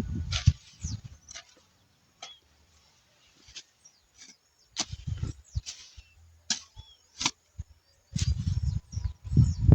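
Hoe chopping into soft soil and weeds: a series of irregular strikes with scraping, denser at the start and again for the last couple of seconds.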